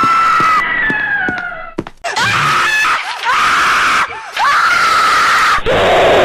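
A cartoon girl character screaming in a string of long, raspy screams with short breaks between them, the last scream lower in pitch.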